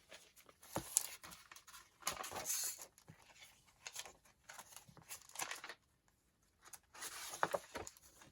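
Paper rustling and crackling as sheets are handled, in short irregular bursts with a few sharp clicks.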